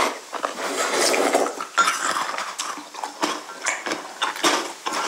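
Wooden spoons knocking and scraping in ceramic mugs, with close-up chewing and slurping of Maltesers soaked in cold milk. The sound is a run of short, irregular clicks.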